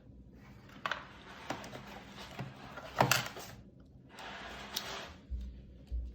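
Rustling from handling packaging and small charging accessories, with a few sharp clicks and taps, the loudest about three seconds in.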